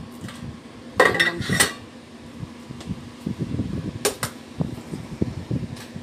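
Stainless steel bowls knocking and clanking against the counter as they are handled. The loudest is a ringing clang about a second in, followed closely by a second hit, with a sharper knock about four seconds in.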